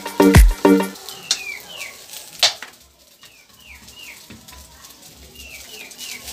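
Background music with a strong beat that stops about a second in. After it, a metal spatula stirring fried rice in a wok over faint sizzling, with one sharp tap near the middle and repeated short, high, falling chirps in twos and threes.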